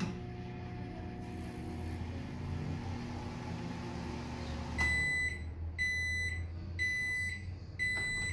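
Philco microwave oven running with a steady hum for about five seconds, now working again on a new 10 A fuse that replaced the blown one. Its cycle then ends with four beeps, each about half a second long and about a second apart.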